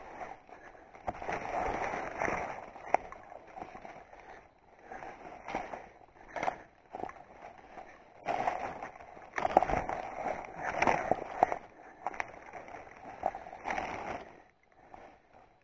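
Irregular rustling and swishing of leafy undergrowth brushed by someone pushing through forest vegetation, in uneven surges, with a few sharp clicks and snaps.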